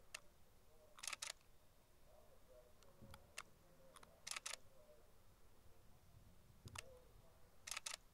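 Distant aerial firework shells going off as faint low booms, with a sharp double click about every three seconds, three times.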